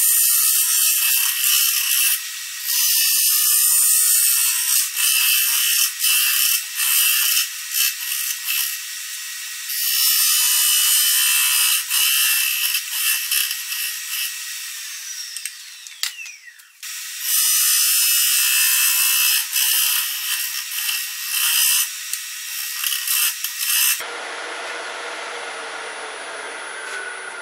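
A 1-inch round nose scraper cutting a resin-and-walnut bowl blank spinning on a lathe: a loud hissing scrape, broken by short pauses as the tool lifts. Near the end the cutting stops suddenly and the lathe runs on alone with a quieter, steady high whine.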